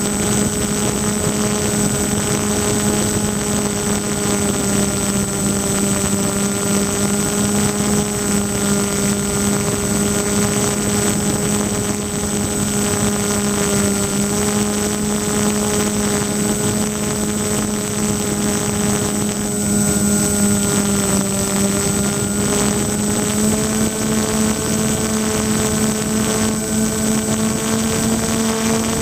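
Twin electric motors driving 10x6 propellers on a foam-board RC plane, droning steadily at cruise power with only slight changes in pitch, heard from a camera mounted on the plane, with wind rushing over the microphone.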